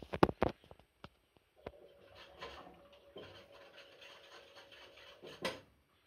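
Gorenje front-loading washing machine running, its drum turning wet laundry in water with a rustling slosh and a faint steady motor hum. A few sharp knocks come at the start and a louder one near the end. The owner says it can barely even soak the load, on its third inverter motor in six months.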